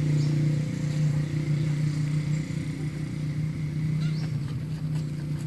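A motor running with a steady low hum, unchanging in pitch.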